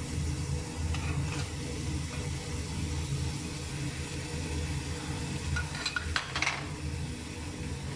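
Raw meat pieces sizzling in a hot stainless pot as they are tipped in from a bowl and stirred with a wooden spoon, over a steady low hum. A few sharp knocks of spoon and bowl against the pot about six seconds in.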